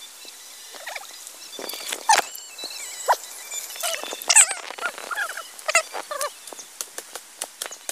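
A hand splashing and sloshing in shallow muddy stream water while groping for crabs: irregular wet slaps and gurgles, busiest in the middle.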